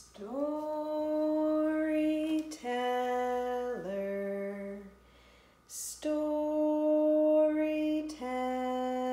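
A woman singing slowly and unaccompanied: a phrase of three falling notes, each held about a second, sung twice, with an audible breath before each phrase.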